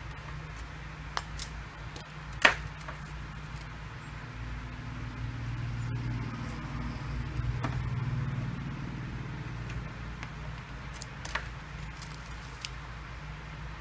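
Scattered small clicks and taps of metal and plastic pry tools against a Samsung Galaxy S6 Edge's glass back, with one sharp click about two and a half seconds in. Under them runs a steady low hum that swells in the middle and fades again.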